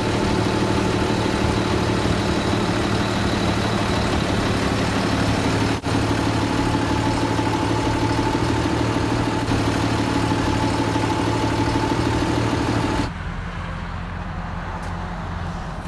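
Ford F-650 truck engine idling steadily at the front grille. About thirteen seconds in it cuts abruptly to a quieter low rumble.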